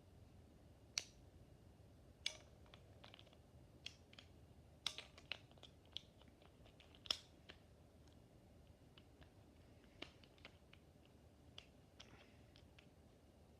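Small plastic clicks and taps from Beyblade top parts being handled and fitted together, irregular and sparse. The loudest clicks come about a second in, just after two seconds, around five seconds and around seven seconds.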